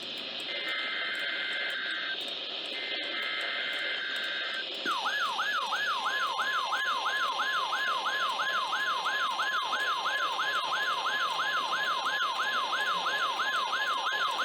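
NOAA Weather Radio broadcast heard through a radio receiver with a steady static hiss. It opens with two bursts of the SAME digital header's buzzing two-tone data signal. About five seconds in, the steady 1050 Hz weather radio warning alarm tone starts, overlaid with a rising siren-like sweep that repeats about two and a half times a second.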